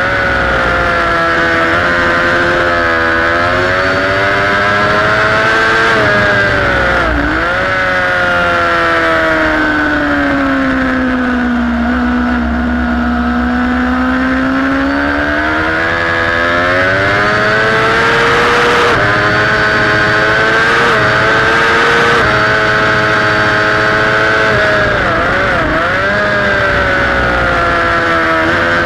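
Sport motorcycle engine at full track pace, heard over wind rush, with its note rising and falling as the rider works the throttle. There are brief sharp dips at gear changes, about three seconds in, about seven seconds in and near the end. The revs sag slowly through a long corner, lowest about twelve seconds in, then climb again.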